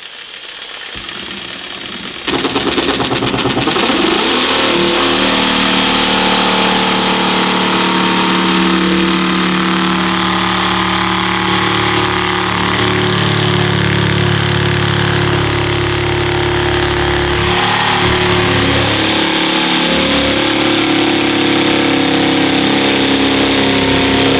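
A jigsaw cutting through a vinyl floor plank, motor starting abruptly about two seconds in and running steadily, its pitch shifting as the blade meets the cut.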